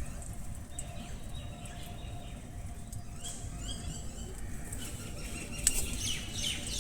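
Baby parrots calling with short chirps, a cluster in the middle and another near the end, over a steady low rumble, with one sharp tap near the end.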